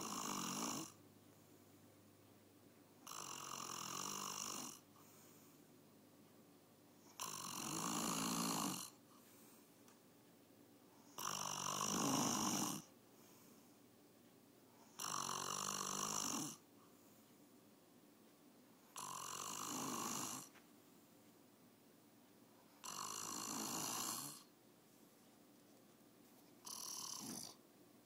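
A man snoring in his sleep, one snore about every four seconds, each lasting one to two seconds, with quiet in between.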